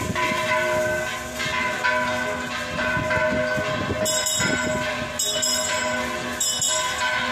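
Church bells ringing, struck repeatedly, their tones hanging on between strokes.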